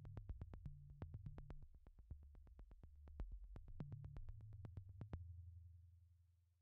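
Faint synthesizer background music: a low soft bass with a quick, even ticking beat. It stops about six seconds in.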